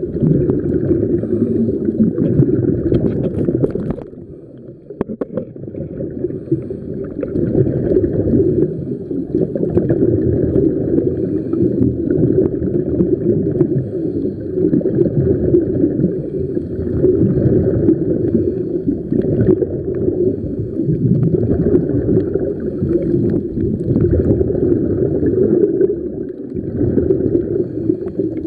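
Muffled underwater rushing and gurgling of water around the camera, swelling and easing every few seconds, with a brief lull about four seconds in.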